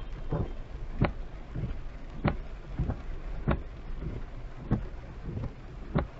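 Car windshield wipers sweeping in heavy rain. A sharp thump comes about every 1.2 seconds with a softer one between, over a steady rumble of road and rain noise inside the car.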